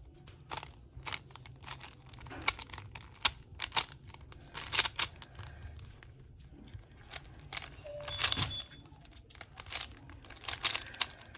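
Stickerless 3x3 speed cube turned fast by hand: quick, irregular clacks and scrapes of the plastic layers, coming in bursts with short pauses.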